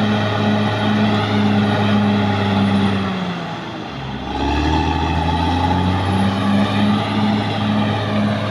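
Caterpillar D6R XL bulldozer's diesel engine running hard; about three seconds in the engine speed sags and drops in pitch, then picks back up within a couple of seconds.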